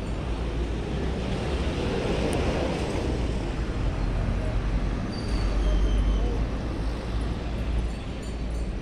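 City-centre street ambience: a steady rumble of traffic with faint voices of passersby.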